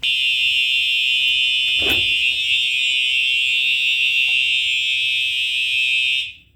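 Home fire alarm system sounding a loud, steady, high-pitched alarm tone, with a single knock about two seconds in. The alarm cuts off suddenly near the end as the system is silenced.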